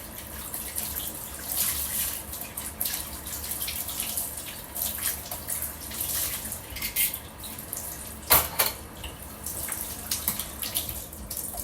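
Tap water running into a sink as a container is rinsed out, splashing unevenly, with a sharp clatter about two-thirds of the way through.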